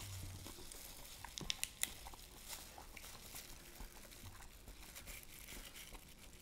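Faint crinkling of disposable plastic gloves and small clicks and cracks as seafood is peeled by hand, with a quick run of sharp ticks about a second and a half in.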